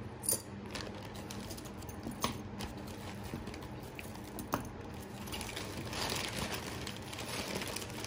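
Jewelry being handled: a few light clicks of metal pieces knocking against each other or the table, then a soft rustling from about five seconds in as the next piece is picked up.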